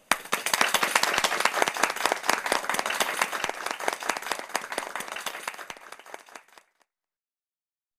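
A group of people applauding, dying away gradually and ending about six and a half seconds in.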